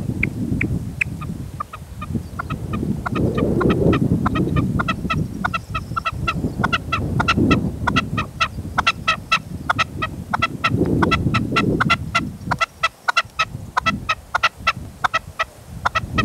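Red-legged partridge calling in a fast run of short clipped notes, about three to four a second, with brief breaks, over gusty wind buffeting the microphone.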